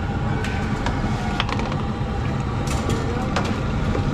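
A metal ladle stirring thick chickpea curry in a large aluminium pot, giving a few sharp knocks against the pot, over a steady low rumble.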